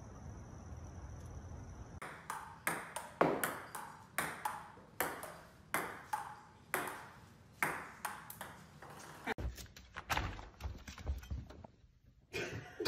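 Table tennis ball being hit back and forth, sharp hollow clicks off paddles and the table, each with a short ring, about one a second and coming quicker near the end.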